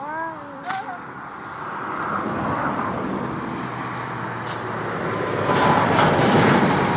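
A road vehicle approaching and passing close by: its tyre and engine noise builds over several seconds and is loudest near the end. A couple of sharp snaps stand out over it.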